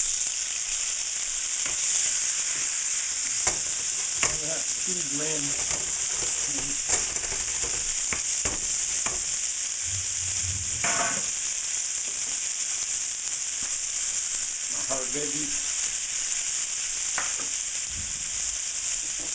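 Diced chicken hitting very hot oil in a skillet and frying: a loud, steady sizzle that starts abruptly as the pieces go in, with a few light clicks through it.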